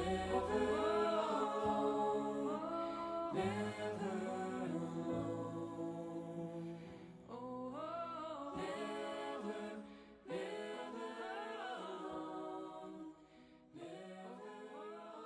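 Wordless vocal music, voices sustaining and gliding through slow phrases in harmony, gradually fading out.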